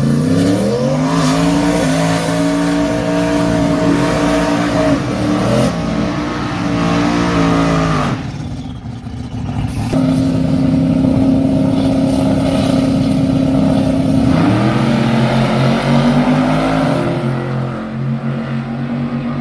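Drag racing car engines revving hard and running at high rpm: the pitch climbs steeply, holds high for several seconds, falls away about eight seconds in, then rises and holds again, climbing once more near the end.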